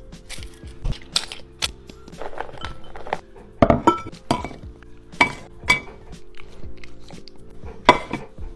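Ceramic dog bowls, a small shaker bottle and food being handled on a wooden table: a string of irregular clinks and knocks, the loudest near the middle and near the end, over steady background music.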